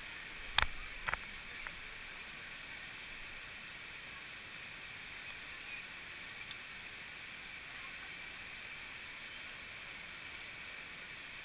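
Steady rush of a waterfall, with a few sharp knocks about half a second and a second in.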